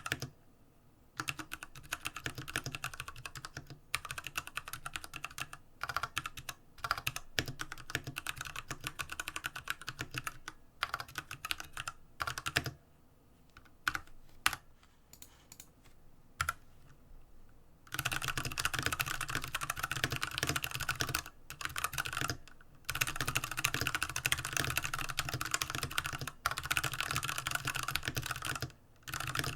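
Typing on an IQUNIX F96 mechanical keyboard with Cherry MX Brown switches: runs of key presses with short pauses, sparser and quieter in the middle, then fast, steady typing through most of the second half.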